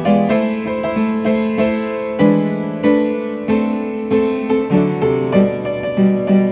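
Solo piano playing a hymn tune in a free arrangement, with full chords and a melody struck about every half second.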